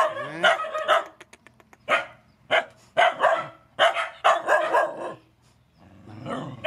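Dogs barking: short barks, repeated at uneven intervals, with a pause before a last one near the end.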